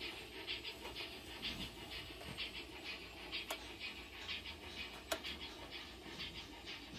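Model railway turntable's drive mechanism running as the bridge rotates, a rhythmic raspy whirr pulsing about two or three times a second, with a few sharp clicks along the way.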